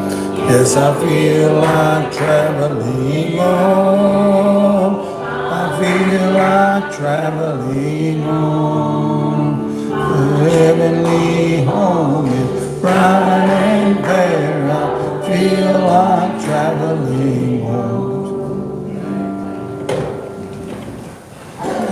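A congregation singing a hymn together with keyboard accompaniment, the singing tapering off near the end as the song closes.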